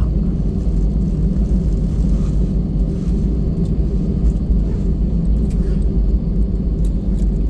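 Steady low rumble in the cabin of an Airbus A320 taxiing in after landing: the engines at idle and the wheels rolling over the concrete taxiway, with a few faint clicks of the cabin.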